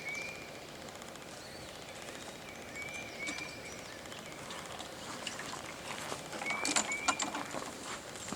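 A bird calling in short paired whistles three times, over quiet outdoor background, with a few sharp clicks and knocks about two-thirds of the way in.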